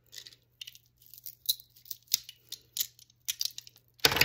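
Beaded stone and metal stretch bracelets clicking and rattling against each other as they are worked over a wrist: a scatter of small irregular ticks, with one louder knock near the end.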